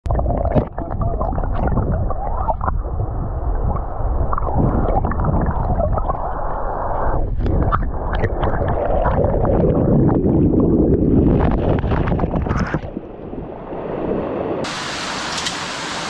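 Stream water heard underwater through a camera housing: a muffled rumble and gurgle of moving water and bubbles with scattered small ticks. About a second and a half before the end it switches to the brighter open-air hiss of running water.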